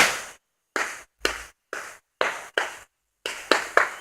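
Firecrackers going off: one loud bang at the start, then about eight sharp cracks at uneven spacing, each dying away quickly.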